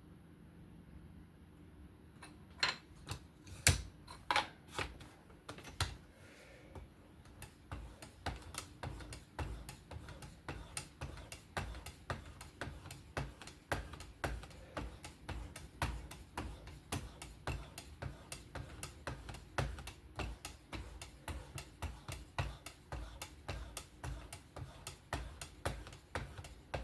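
Knife-sharpening strokes on a Work Sharp Precision Adjust fixed-angle sharpener: a few louder knocks a couple of seconds in, then a fast, even clicking of about three strokes a second.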